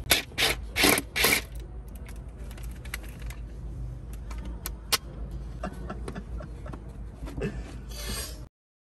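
Loose plastic interior pillar trim panel being handled: a few loud clattering rustles in the first second and a half, then scattered light clicks and a last rattle near the end, over a steady low rumble. The sound cuts off shortly before the end.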